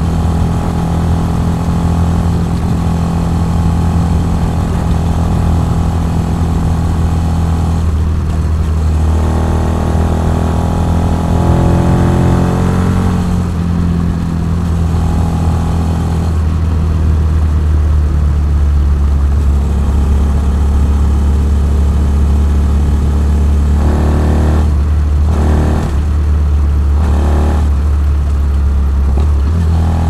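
Benelli TNT 125's single-cylinder four-stroke engine running under way. Its pitch climbs as it accelerates about a third of the way in, and near the end the note breaks off and returns several times as the throttle is closed and opened.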